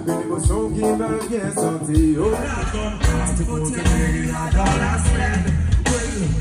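Reggae band playing with a singer: vocals over guitar and bass. The bass drops out for about the first two seconds, then comes back in.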